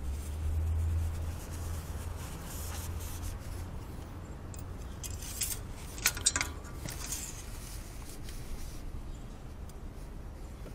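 Engine oil dipstick being wiped with a paper towel and slid back into its metal tube to check the oil level after a refill, with a few sharp clicks about six seconds in, then rustling as it is drawn out again.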